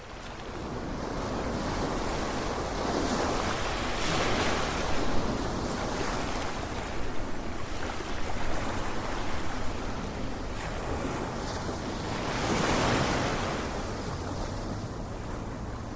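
Ocean waves washing in, a steady rush of surf that swells twice, about four seconds in and again near the end, with a low wind rumble on the microphone.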